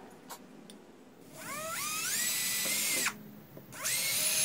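Makita 18 V cordless drill boring holes through a plywood router base. The motor whines up in pitch to speed, runs steady for about a second and stops. After a short pause it starts up again for a second hole.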